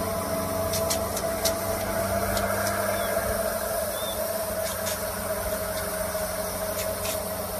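Sprinkler head on a garden hose spraying a jet of water: a steady hiss with a steady hum underneath and a few faint clicks.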